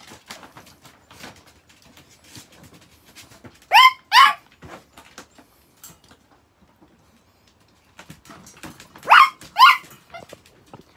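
Chihuahua giving two pairs of short, high yaps, about four seconds in and again about nine seconds in. Faint clicks and scratches sound between the yaps.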